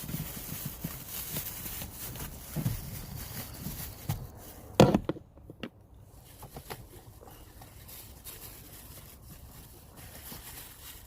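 Hand-handling noises as a bag is fitted over an opening in the engine bay: rustling with scattered clicks and light knocks, and one sharp knock about five seconds in, after which it goes quieter.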